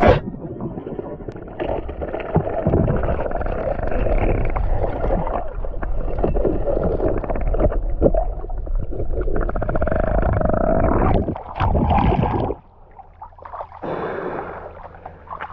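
Muffled underwater bubbling and rumbling through an underwater camera, as a speared snapper thrashes on the spear near the bottom. About twelve and a half seconds in the sound drops off sharply, and a quieter sound of surface water follows.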